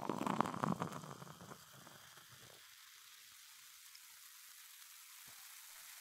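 Soda pouring into a glass, with the pour tailing off about two seconds in. The carbonation then keeps fizzing as a steady faint hiss, with small crackles of bursting bubbles.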